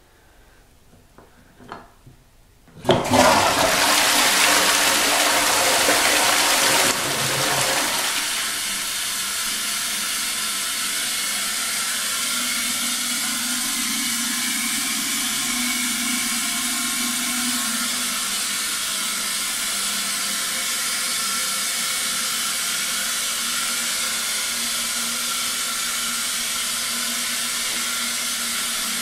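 Toilet flushed about three seconds in: a sudden loud rush of water for about four seconds, then a steady, quieter hiss of water as the cistern refills.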